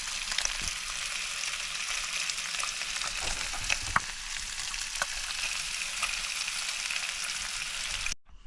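Bacon sizzling in a frying pan: a steady hiss with a few sharp pops and crackles, cutting off suddenly near the end.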